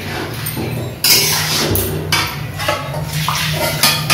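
Metal spatula stirring and scraping a thick curry in an aluminium kadai, in a run of uneven strokes that start about a second in, over a steady low hum.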